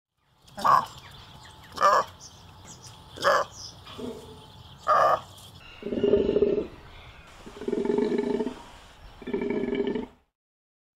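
Takin calling: four short, sharp calls about a second apart, then three longer, deeper calls about two seconds apart.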